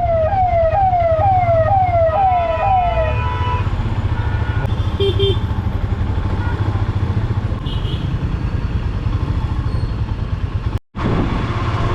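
Siren wailing in repeated falling sweeps, about two a second, for the first three seconds, over the steady low rumble of street traffic. Short horn beeps sound about five and eight seconds in.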